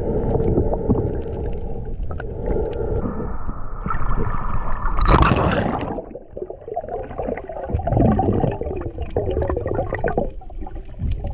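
Muffled underwater sound picked up by a camera in its waterproof housing as a diver swims: water rushing and gurgling against the housing, with a louder, brighter rush about five seconds in.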